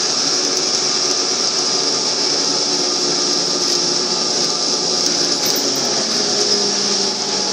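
Interior running noise of a Škoda 15Tr trolleybus under way: a constant high hiss over a low electric motor hum, whose tones shift slightly in pitch about six seconds in as the speed changes.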